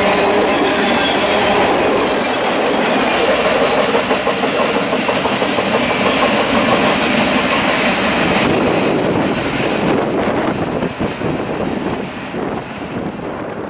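Freight cars of a mixed freight train rolling past, their steel wheels clattering over the rails, with a light wheel squeal in the first second or two. The sound fades in the last few seconds as the train moves away.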